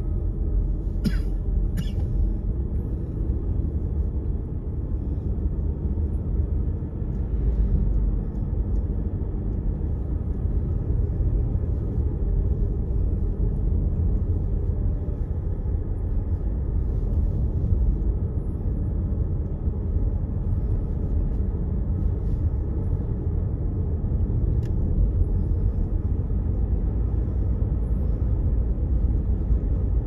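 Steady low rumble of a car driving on a paved road, heard from inside the cabin: engine and tyre noise. Two short sharp clicks about a second in.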